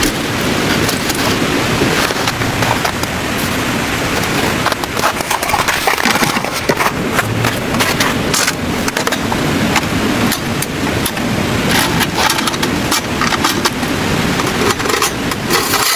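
Steady rushing noise of a heavy snowstorm, dotted all through with many small ticks and crackles.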